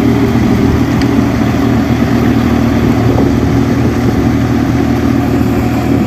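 Four-wheel-drive tractor's diesel engine running steadily under load, driving a rotary bund-former that forms paddy-field bunds.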